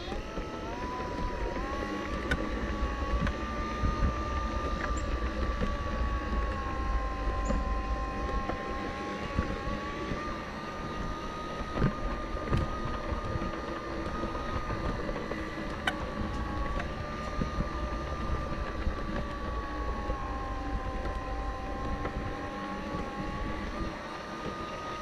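G-scale Piko "Clean Machine" model locomotive's battery-powered electric motor whining, heard from on top of the locomotive, with a low rumble of the wheels on the track. The whine rises in pitch as the train gets going about a second in, then wavers slowly up and down as it runs the loop, with a few sharp ticks along the way.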